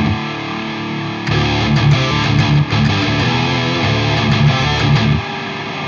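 Drumless progressive metal backing track at 95 beats per minute: distorted electric guitars playing a riff with no drums. The heavy low end drops out for about the first second and again near the end, leaving a thinner held part.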